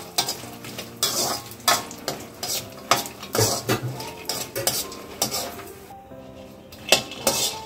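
Metal spoon stirring makhana (fox nuts) roasting in ghee in a metal kadhai, with repeated dry scraping strokes and a light sizzle. Stirring pauses for about a second near the end, then resumes. The dry rattle of the seeds is the cook's sign that the makhana are well roasted.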